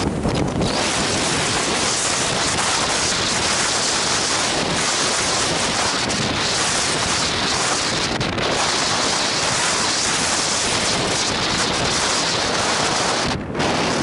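Strong wind blowing across the microphone, a steady rushing noise with a brief drop just before the end.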